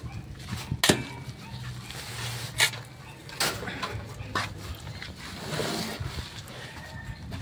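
Sand being unloaded from a truck: a handful of sharp knocks and scrapes, scattered irregularly over a low steady hum.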